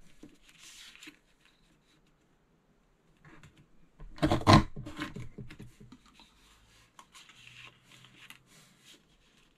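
Snow Capped Mountains border punch pressed down through cardstock once, a sharp clunk about four and a half seconds in. Around it, the paper sheet is slid and rustled across the table to line up the next punch.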